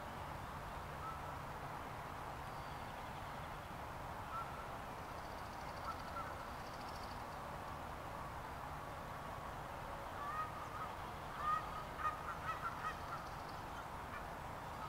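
Short bird calls: a few scattered single calls, then a quick run of them about three-quarters of the way through, over a steady outdoor background hiss.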